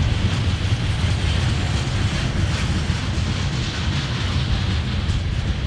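Freight train cars rolling past: a steady low rumble of steel wheels on the rails.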